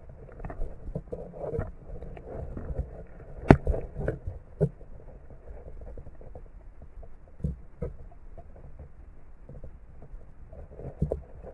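Muffled underwater handling noise heard through a camera's waterproof housing: irregular dull knocks and bumps, the sharpest about three and a half seconds in.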